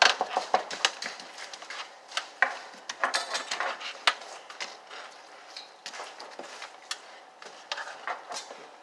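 Toy cooking utensils and dishes tapping and clattering in quick, irregular clicks. They are busiest over the first few seconds and sparser after.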